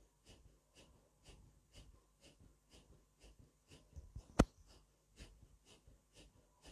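Rapid, rhythmic forceful breathing of silent Sufi zikr, about two strokes a second, evenly paced. One sharp click about four and a half seconds in.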